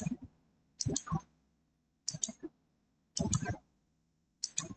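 Computer mouse being clicked: a quick pair of sharp clicks about once a second, five times.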